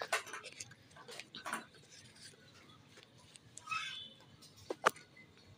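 Plastic toy kitchen pieces clicking and knocking against each other and the wooden table as they are fitted together: a few short sharp clicks, the sharpest near the end, with a brief squeak shortly before it.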